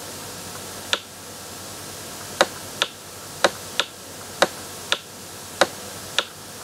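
About nine sharp, dry clicks from the pen or mouse input used to draw handwriting strokes on a digital whiteboard, several coming in pairs about half a second apart as each stroke is pressed down and released. A steady faint hiss lies underneath.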